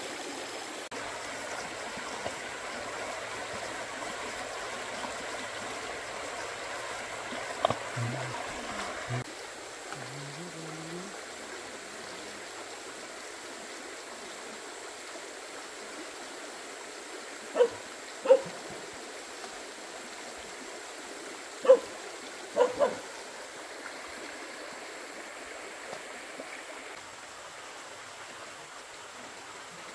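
Steady rush of running water, with a dog giving a few short barks: one about a quarter of the way in, then a pair and a quick group of three in the middle.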